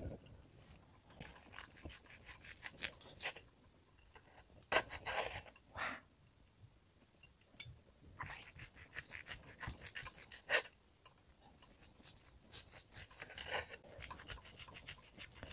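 Steak knife sawing through a thick seared top blade steak in rapid back-and-forth strokes. It comes in several runs with short pauses between them.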